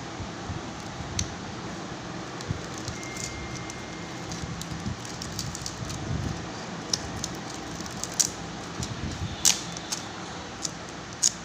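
Steady background hum with scattered small clicks and crackles, a few sharper ones in the second half.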